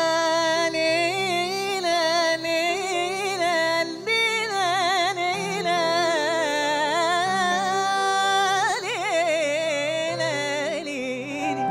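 A woman singing an Egyptian song with long, wavering, ornamented held notes over a steady instrumental backing.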